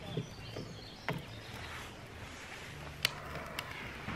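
Split kindling catching fire in a metal fire bowl, lit with a long lighter: a few soft knocks early, then two sharp clicks or snaps about three seconds in, over a faint steady background hum.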